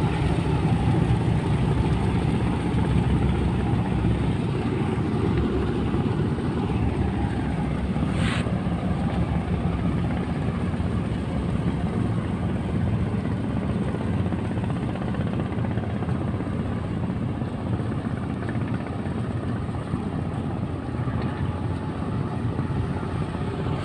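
Tugboat's diesel engine running steadily under towing load, its propeller churning the river water into a constant low drone. One short click about eight seconds in.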